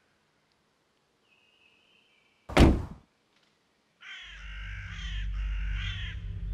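A single heavy thud about two and a half seconds in, after near silence. From about four seconds in, birds calling repeatedly over a low steady rumble.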